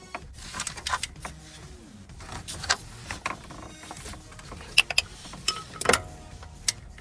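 Hand tools at work on the engine's belt-drive tensioner pulley mount: irregular metallic clicks and clanks of a wrench and socket on the mounting bolts.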